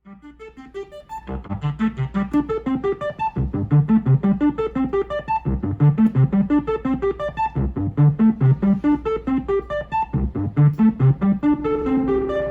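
Keyboard music: a quick, steady run of piano-like notes over a low bass note about every two seconds, fading in over the first couple of seconds.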